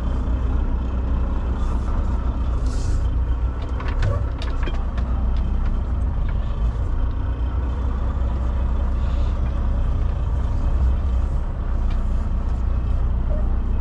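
Semi-truck diesel engine running with a steady low rumble while the truck is slowly manoeuvred, with two short hisses of air about two and three seconds in and a few light clicks around four seconds.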